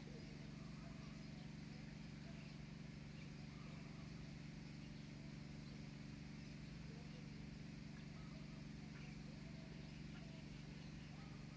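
Faint steady low hum under quiet ambience, with faint distant voices.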